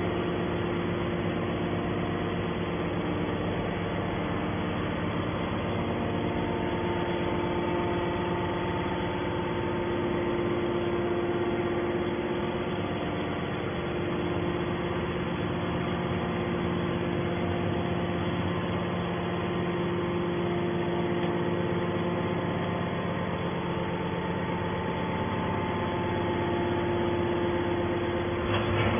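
Hydraulic scrap metal baler running, a steady machine hum with several held tones that stays at an even level throughout.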